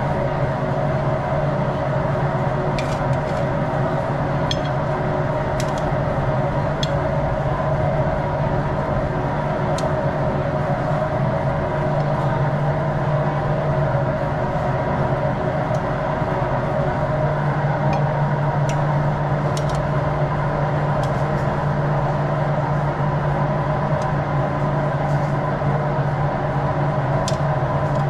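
Steady mechanical hum and drone of running kitchen equipment at a wok range, with a few faint metallic clicks of steel tongs on a perforated steel skimmer.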